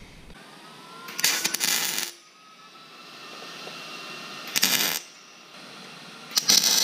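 MIG welder crackling in three short bursts as it tack-welds small pieces of steel: a burst about a second long around one second in, a half-second one midway, and another near the end.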